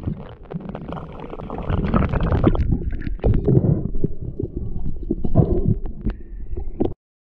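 Underwater camera sound: a low rumble of water moving past the camera housing, broken by many small knocks and clicks. It stops abruptly near the end.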